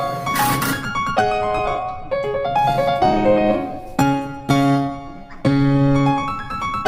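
Background piano music, a melody with struck chords.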